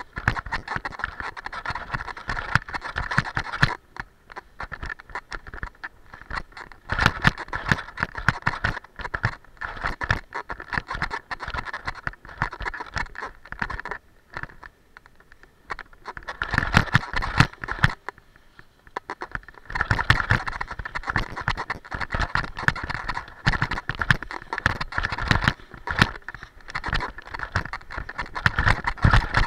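Alpine skis scraping and chattering over hard, crusty, tracked snow in an irregular run of rasps and clatters, easing off briefly a few times.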